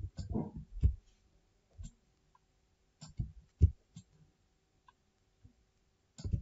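Computer mouse clicks and keyboard key presses: a handful of short, dull knocks at irregular intervals, bunched in the first second, again around three seconds in, and near the end.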